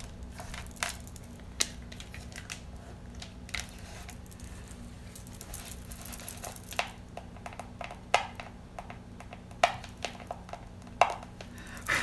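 Scattered clicks and light knocks of a cured resin bowl with a crystal-crusted rim being handled and turned, over a steady low hum.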